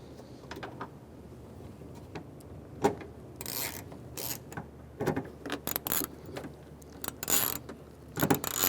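Screw being driven into the back of a car door handle with a hand tool. A single click comes about three seconds in, followed by repeated short clicking, scraping bursts as the tool is turned.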